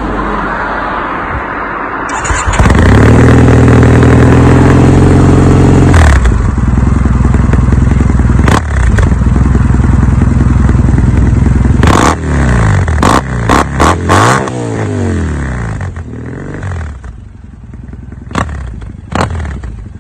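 Triumph Bonneville T100 parallel-twin engine through a full Arrow exhaust system, running and then revved and held high for about three seconds a few seconds in. It drops back, then is blipped several times in quick succession around the middle and settles back to a lower, quieter run near the end.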